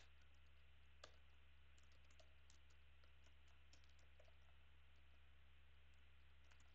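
Faint typing on a computer keyboard: a scatter of soft key clicks, one a little louder about a second in, over near-silent room tone.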